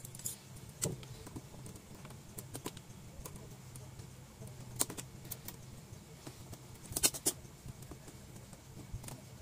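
Scattered light clicks and taps of plastic and small parts as the rear plastic casing of a Toshiba LED TV is worked open by hand, with a quick cluster of clicks about seven seconds in, over a steady low hum.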